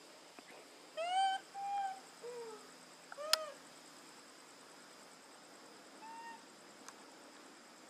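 Infant macaque cooing: five short, clear calls that each rise and fall in pitch, the loudest about one second in, with a last, fainter coo about six seconds in. A sharp click comes at the fourth call.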